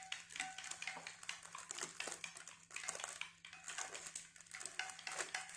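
Thin plastic film of individually wrapped processed cheese slices crinkling as it is peeled open by hand, a run of quick, irregular rustles.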